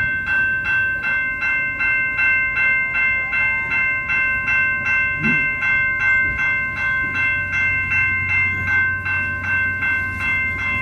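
Railway level-crossing bell ringing loudly and steadily, about three strikes a second, over the low rumble of passenger cars rolling past.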